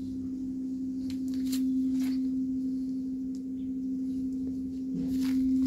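A steady hum held at one pitch, with a few short rustles over it about a second in and again near the end.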